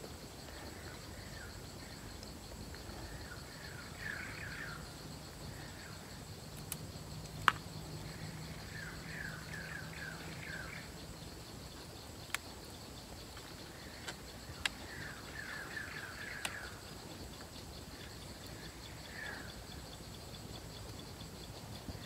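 Steady, high pulsing trill of insects with a bird chirping in quick runs of short notes every few seconds. A few sharp clicks stand out, the loudest about seven and a half seconds in.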